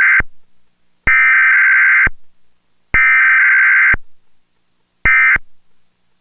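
Emergency Alert System SAME digital data bursts for a Required Weekly Test. The tail of one one-second header burst, two more identical one-second header bursts about a second and three seconds in, then a short end-of-message burst about five seconds in.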